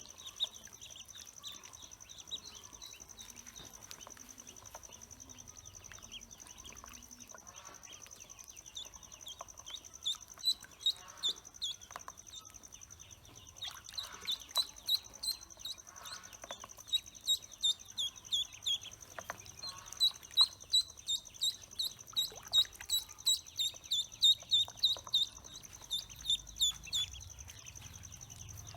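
Pekin ducklings peeping: short, high peeps that fall in pitch. They are sparse at first, then come in quick runs of about two or three a second from about a third of the way in.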